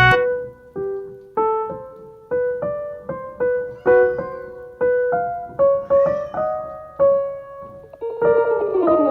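Background music: a slow piano melody of single notes, each struck and left to fade, growing busier near the end.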